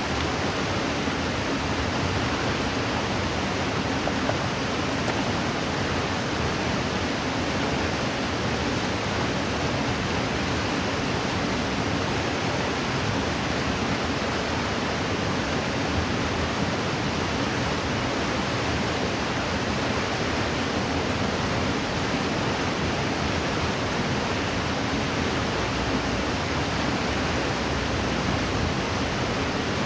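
River water rushing over rocks: a steady, even roar with no breaks.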